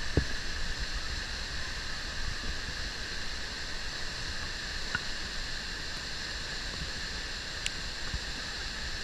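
Muddy flash-flood waterfall pouring over a sandstone cliff: a steady rush of falling water. A few faint clicks.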